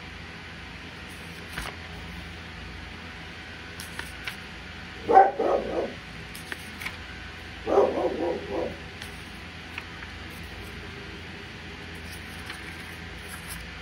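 Dog barking in two short bouts of several quick barks, about two and a half seconds apart, over a steady low hum.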